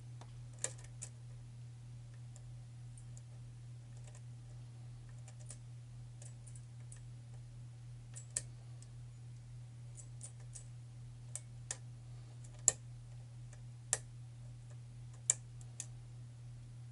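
Lock pick working the pin stack inside a pin-tumbler challenge lock: a dozen or so short metallic clicks at irregular intervals, the loudest about three-quarters through, as pins are lifted and set. A steady low hum sits underneath.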